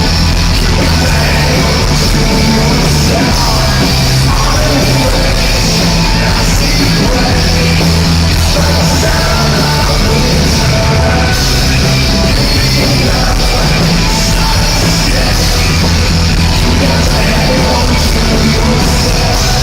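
Loud live rock music from a full band, continuous and dense throughout.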